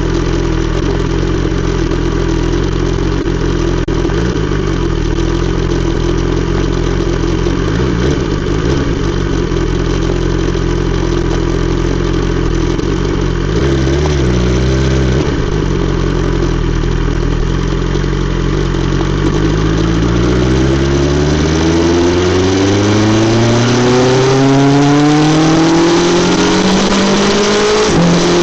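BMW S 1000 XR's inline-four engine through an Akrapovic exhaust, running at steady revs, then climbing steadily in pitch over the last third as the revs rise.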